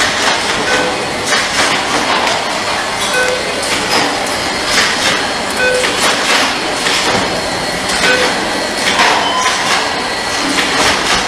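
Automatic pin-soldering machine running: continuous mechanical clatter and knocking, with a short two-pitch tone repeating about every two and a half seconds as the machine cycles.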